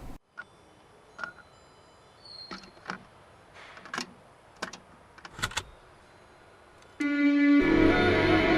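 A few faint short clicks and soft swishes, then background music starts about seven seconds in: a single held low note, with the full track coming in just after it.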